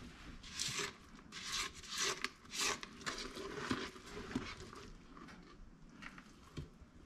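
Silicone spatula scraping a wet, gritty sugar mixture around the inside of a stainless steel pot: a run of hissing scrapes, strongest in the first four seconds, then softer.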